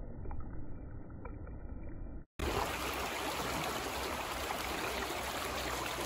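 Creek water running in a steady, even rush, coming in after an abrupt cut about two seconds in. Before the cut there is only a muffled low rumble with a few faint clicks.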